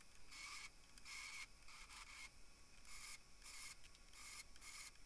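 Steel guide block pressed against a running belt grinder's abrasive belt, grinding the cut-off bolt ends flush. It comes as about eight brief, faint scrapes at uneven spacing, one for each touch of the block to the belt.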